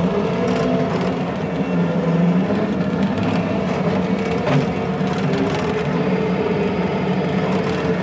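Diesel engine of a compact earthmoving machine running steadily under work, with a few short knocks.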